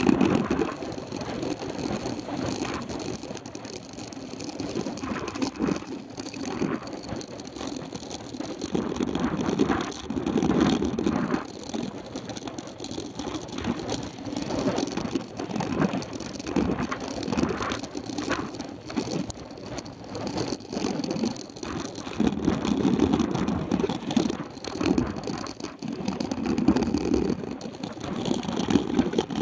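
Mountain bike riding fast on a dirt road, heard from a handlebar-mounted camera: a steady rumble of tyres on dirt and gravel with many small rattling clicks from the bike, swelling and easing every few seconds.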